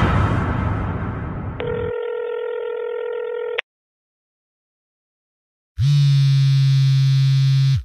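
Phone ringback tone from an outgoing call: a steady ring of about two seconds, a two-second gap, then a louder, buzzier, lower tone for the last two seconds.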